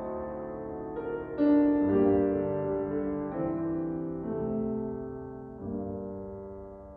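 Steinway concert grand piano played slowly in sustained chords that change about once a second. A fuller chord comes about one and a half seconds in, then the playing grows steadily softer, and the last chord is left to ring and die away.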